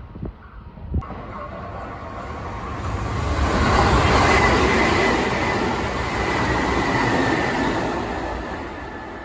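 Sanyo Electric Railway 5000 series electric train passing close by on the station track without stopping. The noise grows, is loudest about four to five seconds in, then fades as the train draws away, with a steady high whine through the loudest part.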